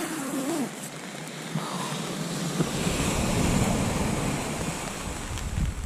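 Surf washing onto the beach in a steady hiss, with wind buffeting the microphone; the wind rumble comes in about halfway through.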